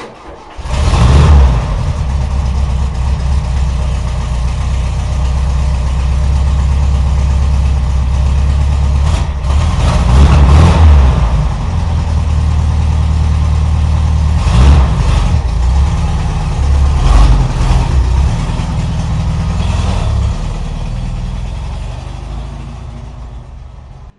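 An engine running steadily close to the microphone, with several louder surges along the way, fading toward the end.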